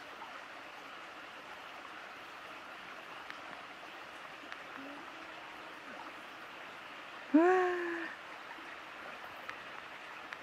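Steady rushing background noise of the outdoors at night. About seven seconds in, a person gives one short voiced exclamation that rises in pitch and is then held briefly.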